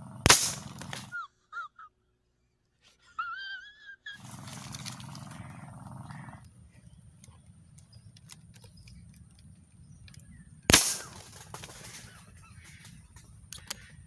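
Two sharp shots from a marble gun, about ten seconds apart, with a few brief chirps of a bird a second or so after the first shot.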